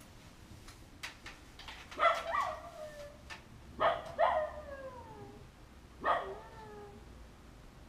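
A dog howling, five short cries that each slide down in pitch: two about two seconds in, two more about four seconds in, and one near six seconds. It is the distress howling of a dog left alone by its owners, which has kept on for hours.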